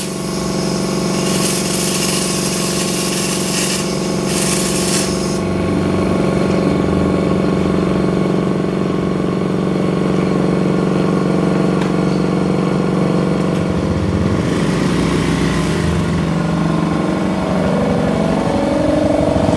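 Air compressor running steadily while a hopper-fed texture spray gun hisses in short bursts of sprayed sand-texture paint during the first five seconds, with one more brief burst about fifteen seconds in.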